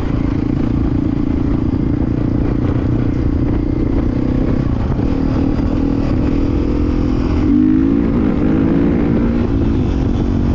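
Dirt bike engine running steadily while riding. About seven and a half seconds in, the revs rise and then waver up and down with the throttle.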